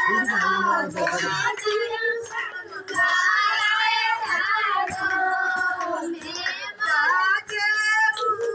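A song with high-pitched singing over music.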